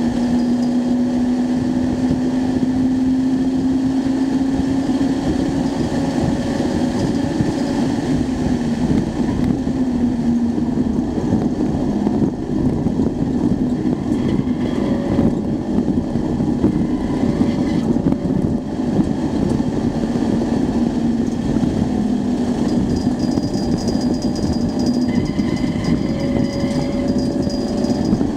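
Acura Integra Type R's 1.8-litre four-cylinder VTEC engine pulling hard at speed, heard from inside the cabin with road and wind noise. The engine note holds a steady pitch and dips briefly about a third of the way in and again later.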